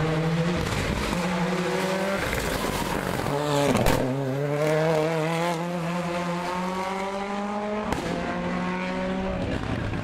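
Ford Escort WRC's turbocharged engine accelerating hard, its pitch climbing through each gear and dropping at the shifts. Sharp antilag bangs come about four seconds in and again near eight seconds.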